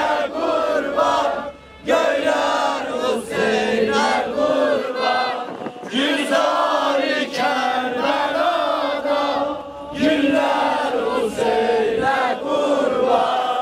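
A group of men chanting an Ashura mourning chant for Hussein together, in short repeated phrases, with brief breaks about two seconds in and again about ten seconds in.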